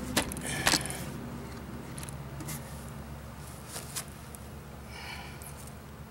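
Wooden bow-drill parts (bow, spindle and fireboard) clicking and knocking as they are handled, two sharp clacks near the start and a few fainter ticks later, over a steady low hum.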